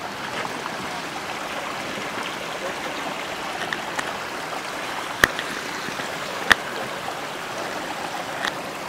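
Shallow mountain stream flowing over rocks, a steady rush of water. Two sharp clicks cut through it about a second and a half apart, a little past halfway.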